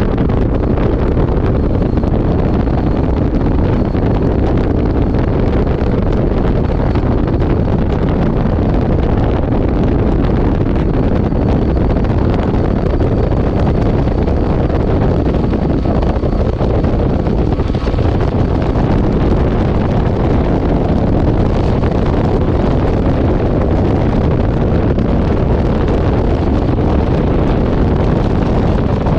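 Steady, loud wind rush on the microphone from a bass boat running at speed across the lake, with the outboard motor underneath.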